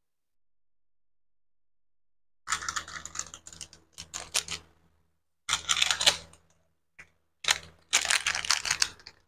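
Hot oil in a frying pan sizzling and crackling around shallots, garlic and ground turmeric. It comes in several bursts of dense popping from about two and a half seconds in, with quiet gaps between them.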